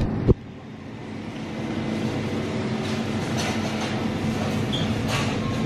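Hard casters of a flatbed platform cart rolling on a concrete floor: a steady rattling rumble that grows louder over the first couple of seconds as the cart comes closer, with a few short clicks.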